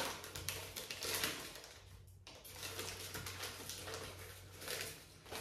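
Brown paper wrapping rustling and crinkling as it is unfolded by hand from around a plant cutting, in a string of short scratchy rustles with a brief pause about two seconds in.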